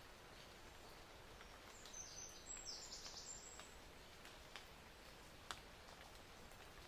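Near silence: faint outdoor background hiss with scattered soft clicks and a brief burst of high chirps about two to three seconds in.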